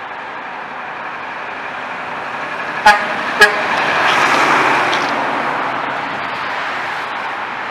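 Mack dump truck sounds two short horn toots about half a second apart, about three seconds in. Its diesel engine grows louder as the truck drives past close by, then eases off.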